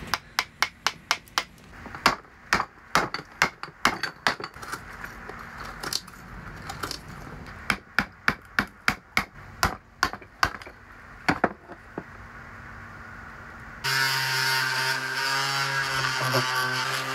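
A hammer striking a chisel over and over, about three blows a second, as it cuts a lip off a cured fibreglass-and-epoxy mount. The blows stop about 12 s in, and about two seconds later a hand-held electric sander starts and runs steadily.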